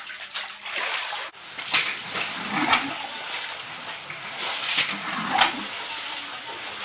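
Shallow flood water inside a house splashing and sloshing, with several separate splashes as it is scooped, poured out and waded through.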